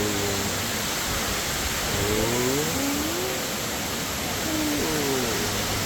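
A waterfall rushing steadily. Three brief sliding pitched sounds rise over it: near the start, about two seconds in, and about five seconds in.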